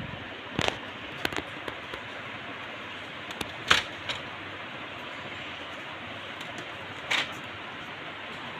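A few short, sharp clicks and light knocks over a steady hiss. The loudest knock comes a little under four seconds in.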